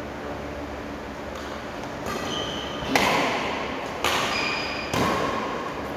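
Badminton rally: a shuttlecock hit back and forth with rackets, four sharp strikes about a second apart, the one about three seconds in the loudest. Short high squeaks sound between the strikes.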